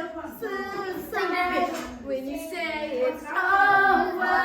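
A child singing a song unaccompanied, in a string of held notes with short breaks between phrases.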